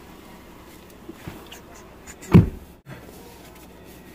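A car door pulled shut from inside: one heavy thump about two and a half seconds in, with small knocks and rustling as someone settles into the driver's seat.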